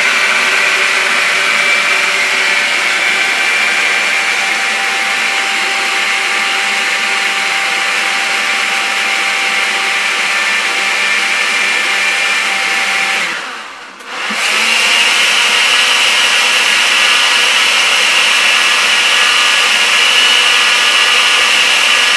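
Countertop glass-jar blender running steadily, puréeing cooked brown rice and carrot with water into a thick cream. About 13 seconds in the motor winds down and stops for a moment, then starts up again and keeps running.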